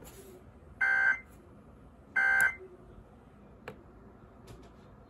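Emergency Alert System end-of-message data bursts: two short, identical bursts of two-tone digital data squawk about a second and a half apart, the last of the three-burst EOM that closes the weekly test. A faint click follows a little over a second after the last burst.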